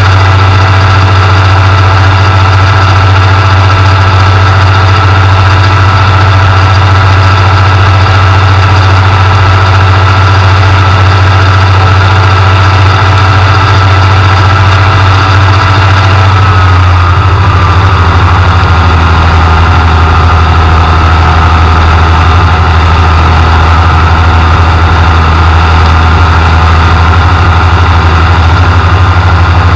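Ultralight aircraft's engine and propeller running steadily in flight, heard loud and close from the open cockpit. About halfway through, the engine note drops slightly and settles at a lower pitch.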